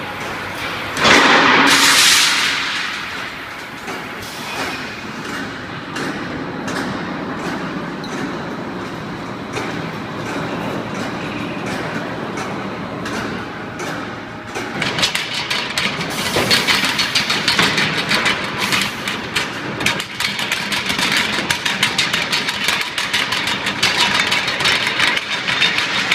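Steel-bar processing line machinery running with a steady mechanical clatter. A loud hiss bursts out about a second in and lasts a second or so. From about halfway through, the sound grows louder, with a fast, dense rattling of metal.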